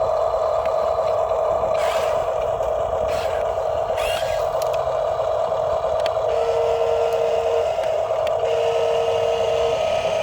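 Radio-controlled toy construction model running with a steady, high electric motor whine, with a few short scrapes and clicks. From about six seconds in, a separate tone beeps twice, each beep over a second long.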